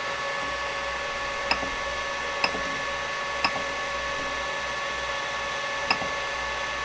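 Creality Ender 5 Pro 3D printer idling with its fans running, a steady whir and hum with a faint high whine. Four short, sharp clicks come through it at uneven spacing, the printer's control knob being clicked through its menus.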